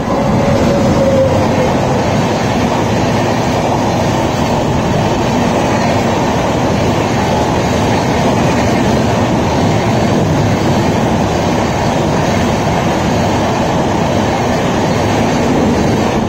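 WAP7 electric locomotive and its Shatabdi Express coaches passing close by at about 110 km/h: a loud, steady rush of wheels on rail.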